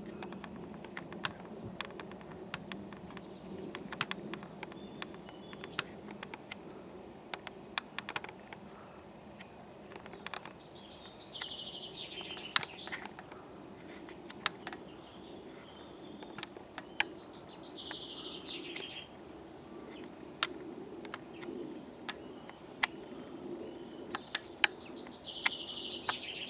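A songbird sings three times, each a quick descending phrase of about two seconds. Beneath it runs a faint steady low hum, with sharp clicks scattered throughout.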